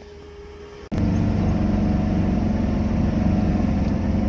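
Quiet cab for about the first second, then the steady drone of the vehicle's engine and road noise cuts in abruptly as it drives along.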